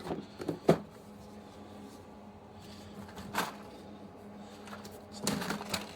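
A plastic storage case being handled. There are a few sharp clicks and knocks, the loudest about a second in, another about halfway through, and a quick run of them near the end.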